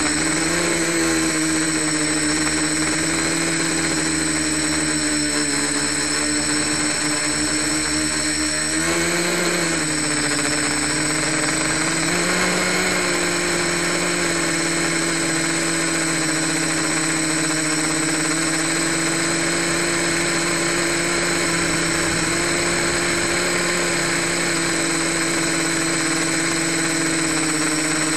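Homemade quadcopter's electric motors and unbalanced propellers buzzing in flight, heard up close from a camera on the airframe. The pitch swells up briefly about a second in and again around nine and twelve seconds in as the throttle changes, and holds steady otherwise, over a constant thin high whine.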